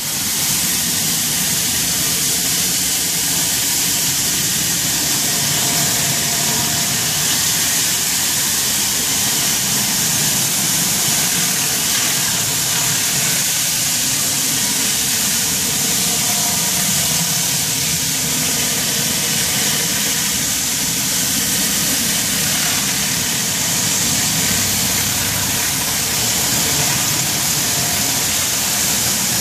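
Hot-water pressure washer running steadily, its engine droning under the loud hiss of high-pressure water sprayed onto a concrete patio through a surface cleaner.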